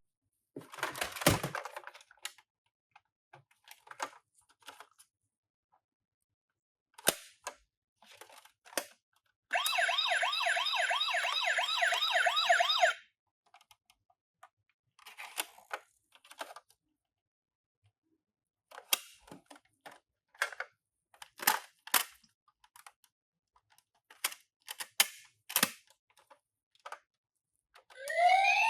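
Scattered light clicks and knocks of toy ambulance minicars being handled, with a toy electronic siren sounding a fast warble for about three seconds near the middle.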